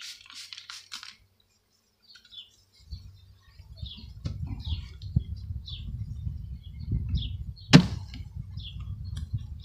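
Several quick squirts from a trigger spray bottle of sugar water misting caged package bees. Then birds chirp over a low rumble, with one sharp plastic click near the end as the package is handled.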